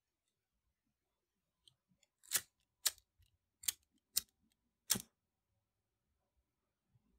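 Disposable flint lighter's spark wheel flicked five times, short sharp scraping strikes starting about two seconds in and spaced roughly half a second to a second apart; the last one catches a flame.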